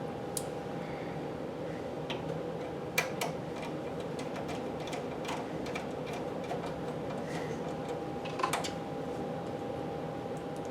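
A few scattered light clicks and taps of hands and a screwdriver handling a desktop computer case as it is closed up, the sharpest about three seconds in and again near the end, over a steady background hum.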